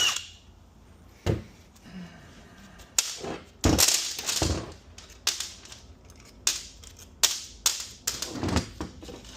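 Metal transmission parts and tools knocking and clattering on a workbench during a 6F35 transmission teardown: a string of separate sharp knocks spaced irregularly, roughly one every half second to second.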